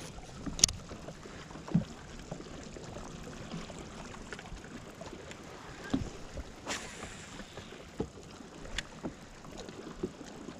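Sounds aboard a fishing boat on the water: a steady low hiss of wind and water, with scattered light knocks and clicks every second or so.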